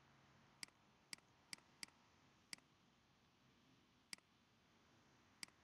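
Near silence broken by about seven faint, sharp clicks at irregular intervals: a pen stylus tapping on a tablet screen as handwriting is written.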